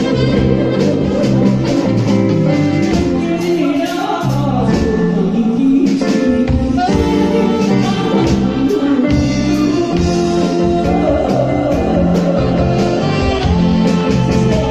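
Woman singing a Taiwanese Hokkien ballad into a microphone, accompanied by electric guitar and keyboard.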